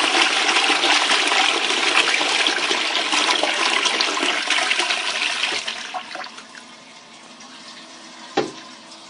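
Armitage Shanks Sandringham siphon-flush toilet flushing toilet paper: a loud rush of water for about six seconds that then dies down to a quieter hiss as the cistern refills, with a single sharp knock near the end.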